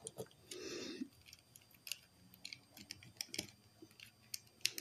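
Faint scattered small clicks and taps from handling objects close to the microphone, with one brief soft noise about half a second in.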